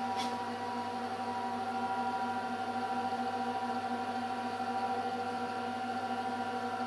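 Steady electrical hum of running laser lab equipment: several held tones layered together, unchanging, with a brief faint high sound near the start.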